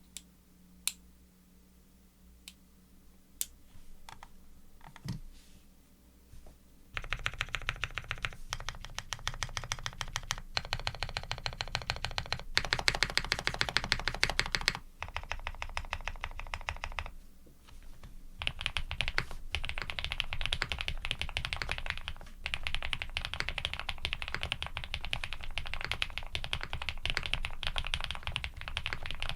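Mechanical keyboard typing on a Mr. Suit custom board with a POM plate, Krytox-lubed linear switches (Cherry housings with cream stems) and GMK keycaps. There are a few separate keystrokes at first, then fast, continuous typing from about seven seconds in.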